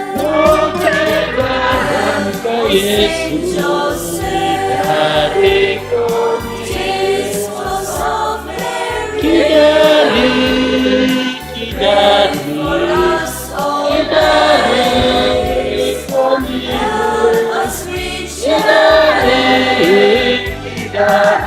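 Church choir singing a hymn, with a steady beat underneath.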